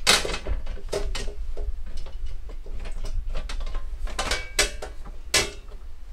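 Knocks and clicks of an electrical breaker panel cover being pressed and pushed into place over the panel box, with its spring-loaded inner door. A loud knock at the start, then more knocks and clicks, several of them between about four and five and a half seconds in.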